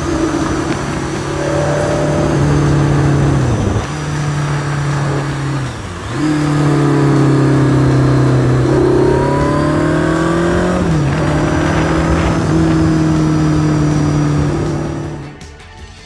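BMW K100's inline-four engine pulling a motorcycle along the road, its note dipping sharply three times and climbing again as it accelerates. The engine sound fades out near the end.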